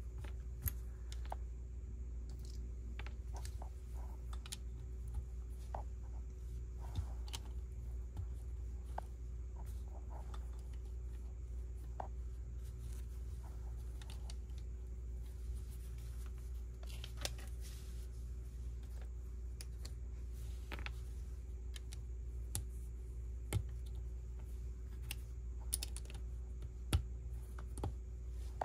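Lego bricks being handled and pressed together: irregular small plastic clicks and rattles, a few sharper snaps near the end, over a steady low hum.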